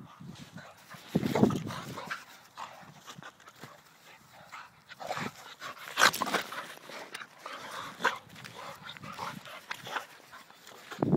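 An Alapaha blue blood bulldog and a blue Staffordshire bull terrier play fighting, the dogs' noises coming in irregular bursts, the loudest about six seconds in.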